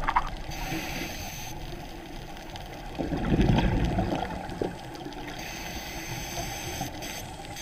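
Underwater scuba breathing through a diver's regulator, muffled as heard by a camera in its housing: a hiss on the inhale, then a burst of gurgling exhaled bubbles about three seconds in, and another hiss later.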